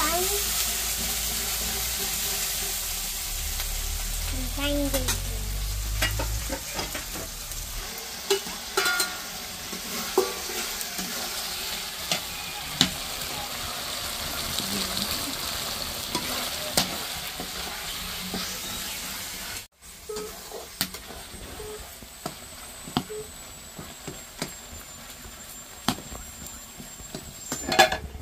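Onion and tomato masala sizzling as it fries in a kadai over a wood fire, stirred with a metal ladle that scrapes and clicks against the pan now and then. The sizzling drops quieter after a brief break about two-thirds of the way in.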